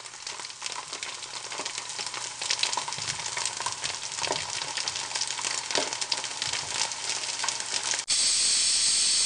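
Logo-intro sound effect: a dense sizzling crackle full of small pops, slowly growing louder, that switches abruptly about eight seconds in to a steady hiss.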